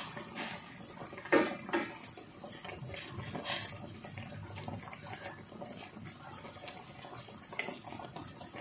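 A wooden spoon stirring water spinach through sinigang broth in a stainless steel pot, the liquid sloshing. A few knocks of the spoon against the pot, the loudest about a second and a half in.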